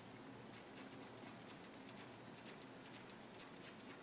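Staedtler pigment liner fineliner nib scratching faintly across paper in a quick run of short, repeated pen strokes, inking fur hairs.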